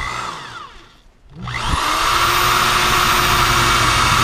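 Cordless drill drilling a pilot hole into the underside of a car: a short whir that fades out, then about a second and a half in the motor spins up with a rising whine and runs steadily at full speed.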